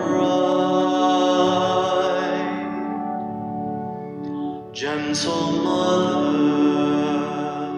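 A slow hymn sung with long held notes over instrumental accompaniment, with a short break about four and a half seconds in.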